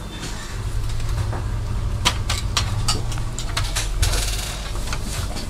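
A low steady rumble, with several small sharp clicks and knocks from the projector's circuit board and metal chassis being handled and worked loose, the loudest about four seconds in.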